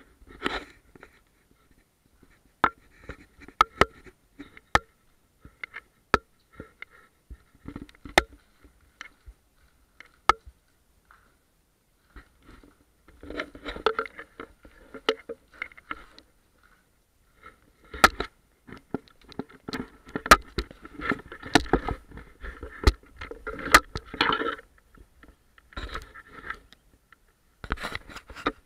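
Close scraping and rubbing against the microphone of a small handheld camera, with scattered sharp clicks; longer stretches of scraping come about halfway through and again later, with short ones near the end.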